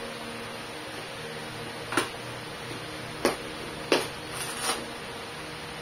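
Sharp plastic snaps as the Gillee GTS V1 helmet's removable inner cheek pads are pulled off their snap locks: three loud clicks starting about two seconds in, then two softer ones, over a steady room hum.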